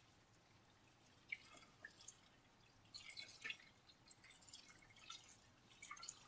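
Faint tap water running into a saucepan of cut potato pieces. Small splashes and taps come in irregularly from about a second in as a hand stirs the pieces, rinsing off their starch.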